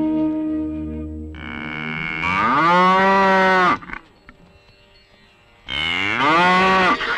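A bull bellows twice, each a long moo that rises in pitch, holds, and then cuts off sharply, with a short quiet gap between the two. Background music with held notes fades out under the first call.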